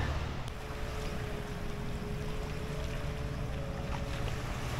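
Steady rumble of wind and small waves at the shoreline, with a faint, steady motorboat engine drone from about half a second in until shortly before the end.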